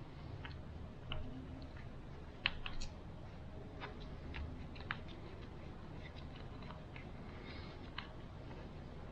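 Scattered light clicks and taps as hands handle a JLab Talk Go USB microphone and work the thumbscrew knob of its swivel mount, with the loudest few clicks about two and a half seconds in.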